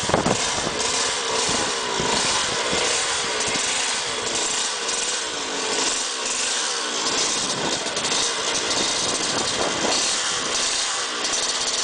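Suzuki GP125 bucket racer's two-stroke single-cylinder engine running, its carburettor mounted outside and feeding a plenum chamber. The pitch wavers up and down with the throttle.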